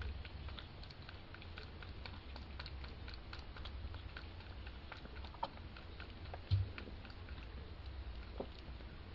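Two young kittens play-wrestling on a towel in a wooden box: their paws and claws make a light, scattered pattering and scratching of small clicks. A thump about six and a half seconds in is the loudest sound.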